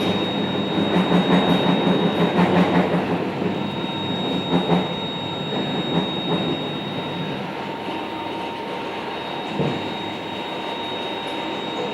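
Steady mechanical running noise with a thin high whine over it, pulsing in the first few seconds, with a few short knocks later on.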